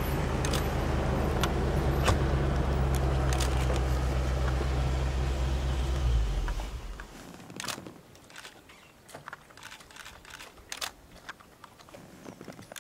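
Vehicle engine idling with a steady low hum, switched off about six seconds in. After that, only faint scattered clicks and taps.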